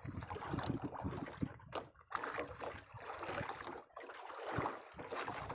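Wind on the microphone and water splashing against the hull of a small open fishing boat, uneven in level, with brief lulls about two seconds in and again around four to five seconds in.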